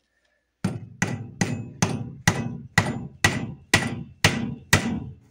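Needle-nose pliers tapping the head of a straightened nail set in a wooden board: about ten sharp metal-on-metal strikes, roughly two a second, each ringing briefly.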